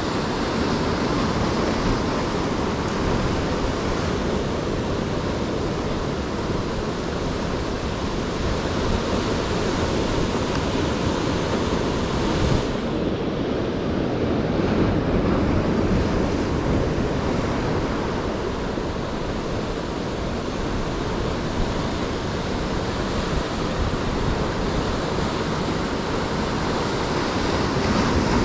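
Rough sea surf breaking and washing over rocks in a steady rush of water, with wind blowing on the microphone.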